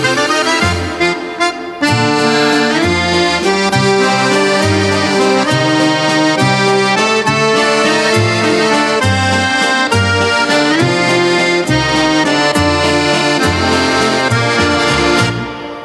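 Instrumental background music: a tune of sustained melody notes over a steady, repeating bass line. It dips briefly about a second and a half in and again near the end.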